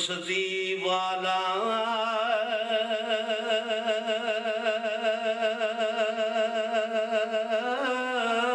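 A man's voice chanting devotional verse unaccompanied, stepping up in pitch over the first two seconds and then holding one long, evenly wavering note until near the end.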